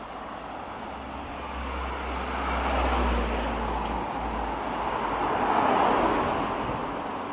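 Road vehicles passing, a rushing tyre-and-engine noise that swells and fades twice, loudest about three seconds in and again near six seconds.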